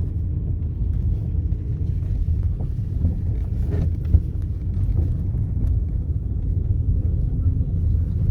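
Steady low rumble of a car on the move, with a few faint clicks and one short knock about four seconds in.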